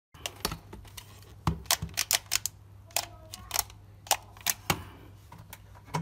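Plastic hair dryer handled and turned over on a workbench: a run of irregular sharp plastic clicks and taps, over a steady low hum.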